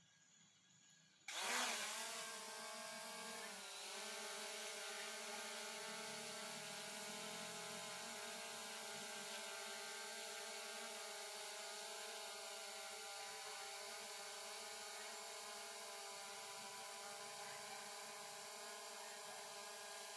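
SJRC F11s quadcopter's motors spinning up suddenly about a second in, then a steady whine with several stacked tones that dips briefly in pitch a couple of seconds later and recovers.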